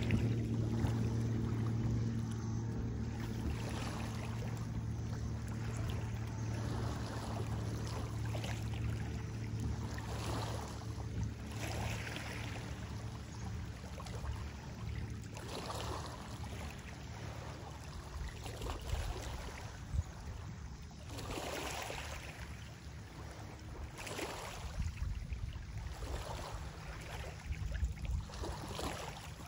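A distant motorboat engine hums steadily and fades away over the first half. Small waves lap and splash against a rocky lakeshore every second or two, with wind rumbling on the microphone toward the end.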